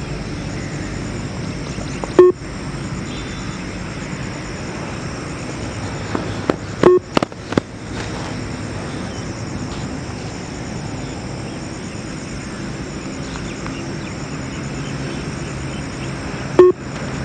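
Beeps from the Yo-Yo fitness test's recorded audio track: a short beep about two seconds in, a quick cluster of several sharp sounds around seven seconds, and another beep near the end, over a steady outdoor background hiss.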